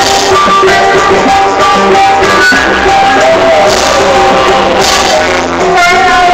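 A child singing a song with guitar accompaniment, the voice holding wavering notes over steady strumming.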